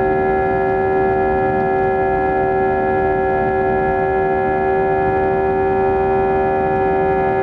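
Cabin sound of an Airbus A320-232's IAE V2500 turbofans during the climb after takeoff: a loud, steady drone with several held humming tones over a rumble, heard from a window seat beside the engine.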